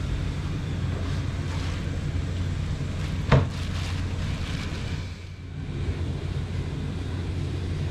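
Steady low machinery hum, like an idling boat engine or generator at the dock, with one sharp knock about three seconds in.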